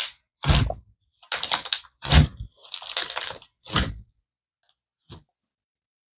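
Slime being squished and stretched by hand in a run of about five short crackling, squelching bursts. Two faint ticks follow about five seconds in.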